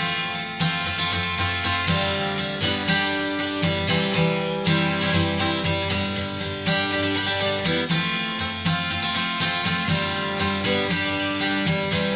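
Background music: acoustic guitar playing plucked and strummed notes in a steady rhythm.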